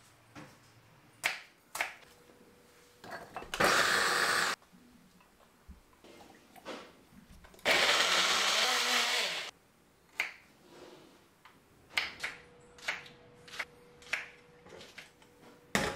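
Small personal bullet-style blender pulsed twice, a short burst of about a second and then a longer one of about two seconds, blending chopped vegetables. Afterwards a kitchen knife cuts okra on a wooden chopping board in scattered sharp taps.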